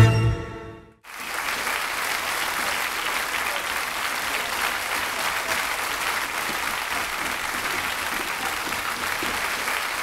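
A string ensemble's final chord dies away in the first second, then a large audience applauds steadily.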